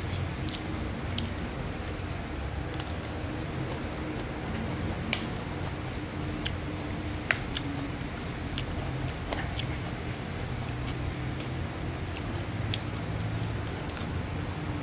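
Spatula stirring and scraping fried rice with chicken and vegetables in a nonstick frying pan: scattered clicks and scrapes of the spatula on the pan over a steady hiss, with three sharper taps between about five and seven seconds in.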